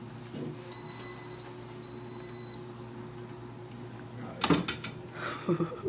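Hoveround power wheelchair running with a steady low motor hum, with two long high beeps about a second in and a loud knock about four and a half seconds in.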